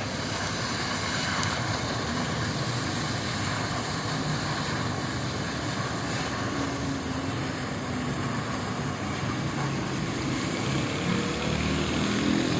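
Steady roaring hiss of a gas-cutting torch flame on an automatic track cutter cutting through steel plate.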